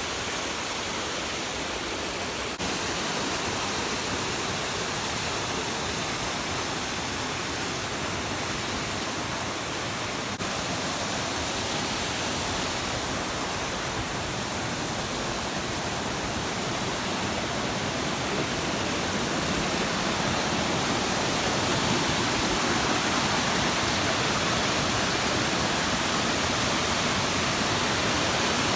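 Waterfall rushing: a steady, dense roar of falling water, with small abrupt jumps in level about two and a half and ten seconds in, and a little louder toward the end.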